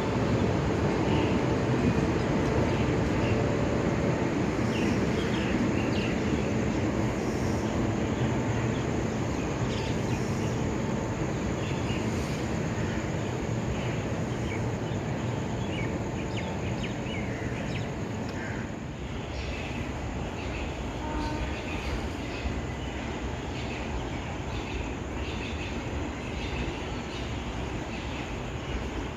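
Train moving on the tracks at a railway station: a dense, steady running noise that slowly grows quieter.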